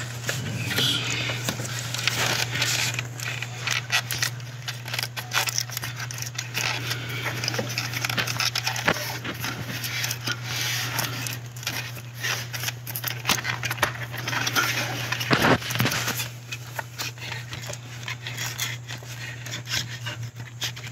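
Rubber fuel hose being worked by hand into place in a car's engine bay: irregular rubbing, scraping and small clicks of the hose against plastic parts and a braided wiring loom, with a louder scrape about fifteen seconds in, over a steady low hum.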